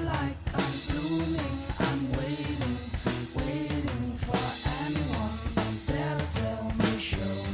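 Background music with a steady drum-kit beat: bass drum and snare under pitched instruments.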